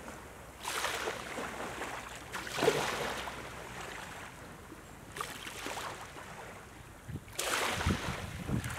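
Small waves lapping and washing up on a sandy beach, each swelling and fading, four washes about every two to three seconds.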